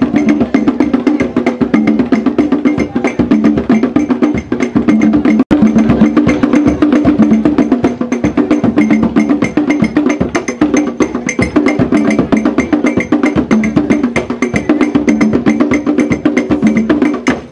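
Traditional Ghanaian drum ensemble playing a fast, dense dance rhythm: rapid drum strokes over a steady clicking, ringing percussion pattern.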